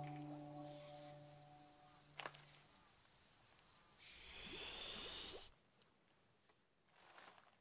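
Cricket chirping as a steady, pulsing high trill, with a low hum under it that fades out about two and a half seconds in and a click just after two seconds. A rushing noise swells up about four seconds in, then everything cuts off suddenly, leaving near silence.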